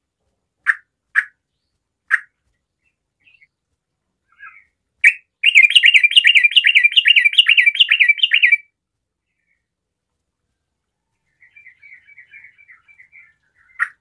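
Yellow-vented bulbul (trucukan) singing: a few short sharp calls, then a loud fast run of repeated warbled notes, about four a second, lasting some three seconds, followed later by a faint chattering phrase and a last sharp call near the end.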